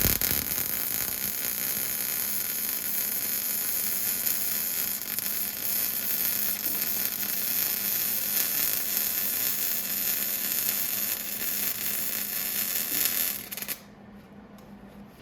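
Electric arc welding a steel hose-hanger bracket onto a square-tube frame: one continuous weld that starts with a sharp strike right at the beginning, runs steadily for about thirteen seconds, and cuts off shortly before the end.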